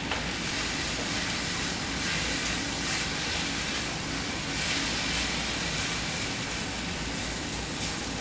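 Baby spinach sautéing in olive oil in a frying pan: a steady sizzling hiss that swells now and then as the leaves wilt and give up their moisture.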